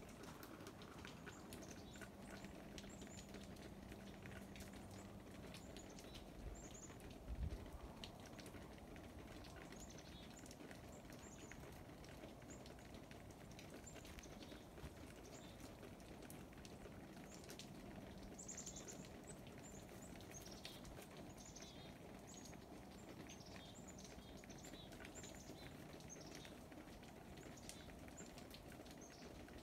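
Near silence with faint small birds chirping: short high chirps scattered through, more frequent in the second half. A soft low thump about seven seconds in.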